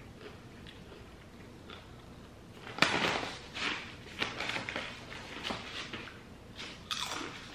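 Crisp crunching of kettle-cooked sweet potato chips being chewed, along with the crinkle of the snack bag as a hand rummages in it, starting about three seconds in as a run of irregular sharp crackles.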